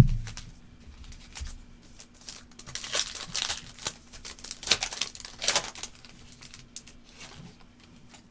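A thump at the start, then a foil trading-card pack wrapper being torn open and crinkled, with two or three short ripping rasps and light clicks of cards being handled.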